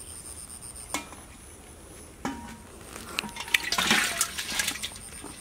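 Water splashing and sloshing in a pot crowded with live fish, with a couple of sharp knocks against the pot early on and a busy spell of splashing just past the middle.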